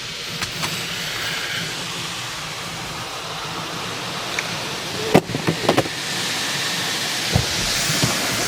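Automatic car wash jets spraying water onto the car: a steady hiss, with a quick cluster of knocks about five seconds in and a single knock near the end.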